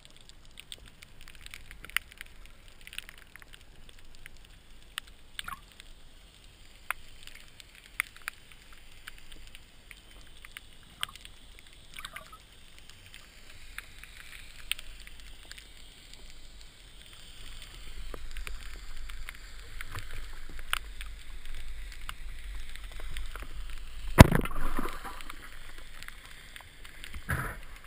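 Underwater sound with scattered sharp clicks and a low rush of water that grows from about two-thirds in, then a single loud crack about 24 seconds in as a band-powered speargun fires, followed by a brief splashing rush.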